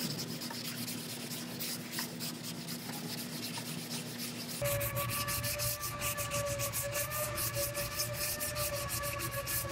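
Body filler on a car's rear quarter panel being hand-sanded with a sanding block: repeated back-and-forth rubbing strokes that come quicker about halfway through. A steady whine starts in the background at the same point.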